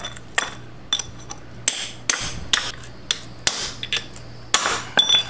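Hammer driving a chisel against a failed ball bearing pressed onto a motorcycle final-drive ring gear: sharp metal-on-metal blows, about two a second and unevenly spaced, each with a brief ring. The blows are working the bearing's interference fit loose, going around the race so it climbs off evenly.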